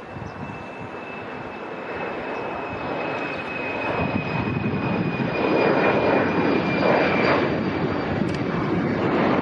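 Embraer E-Jet airliner climbing out after takeoff on its two General Electric CF34 turbofans: steady jet noise that grows louder through the first half as the aircraft comes closer, with a high whine that drops slightly in pitch.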